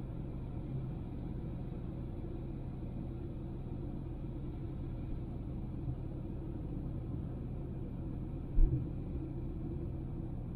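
Steady low rumble of a Honda Civic driving, with engine and road noise. One short, loud low thump comes about eight and a half seconds in.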